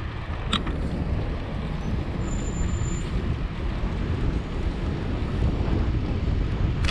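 Wind buffeting the microphone and low road rumble from a bicycle riding along a paved city street. There is a sharp click about half a second in, a brief faint high squeak around two to three seconds in, and a couple more clicks near the end.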